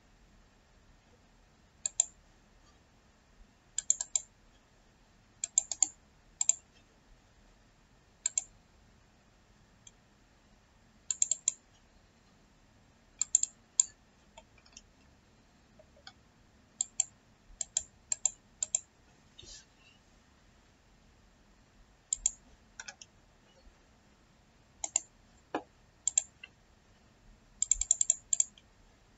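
Computer mouse and keyboard clicks: single clicks and quick runs of two to five, a second or two apart, with a dense run near the end.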